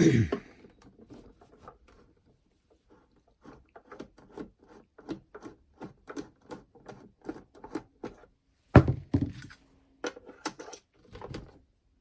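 Small repeated clicks of a screwdriver working a screw out of a plastic clock radio case, at about two or three a second. A louder knock of plastic comes about three-quarters of the way through, and a few more clicks follow.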